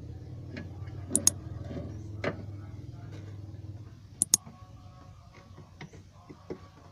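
Sharp metallic clicks from a hand file striking the teeth of a wood hand saw during sharpening, coming in two quick pairs, about a second in and again about four seconds in, over a low hum that fades about four seconds in.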